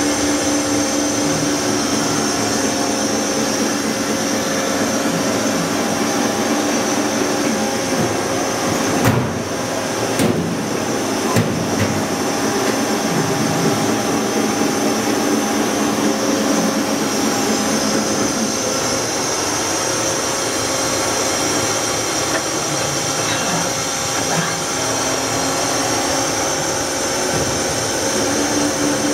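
Steady mechanical whir and hum of running machine-shop equipment, with a low hum that drops out partway through and comes back near the end. A few sharp knocks come about nine to eleven seconds in.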